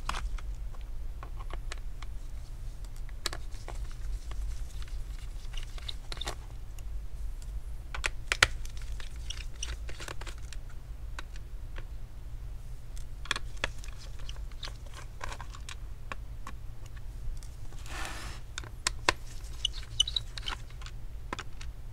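Scattered small clicks and taps of a Phillips screwdriver working the screws out of a laptop's plastic bottom cover and the small screws being set down. A brief scraping rustle comes late on.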